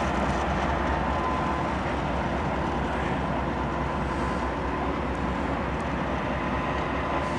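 Norfolk Southern coal train running by with a steady low rumble.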